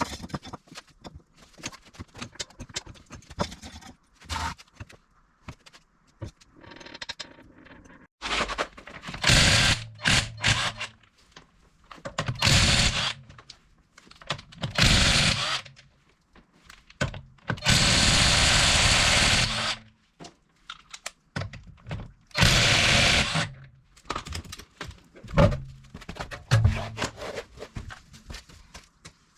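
Handheld power tool running in about six short bursts of one to two seconds each, with scattered knocks and clatter of tools in between.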